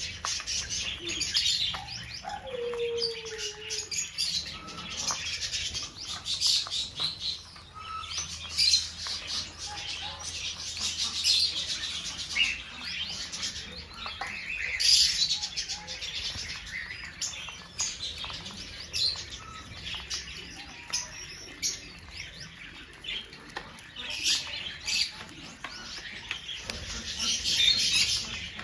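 Small birds chirping and twittering in quick, high calls, one after another almost without a break.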